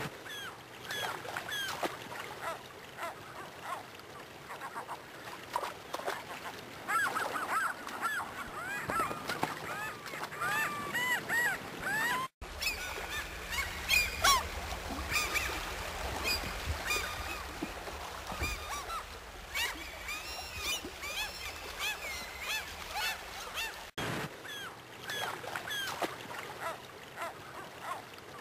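A flock of gulls calling: many short, arching cries overlapping one another, with brief breaks about twelve and twenty-four seconds in.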